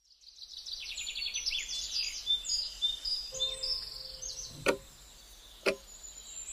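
Birds chirping and trilling in quick high runs, fading after a few seconds. They are followed by two sharp clicks about a second apart.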